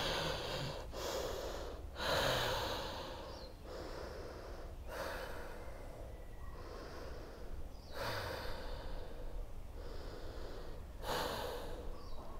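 A person breathing slowly and deeply in and out, audible as a long rushing breath every one to three seconds while holding a yoga pose.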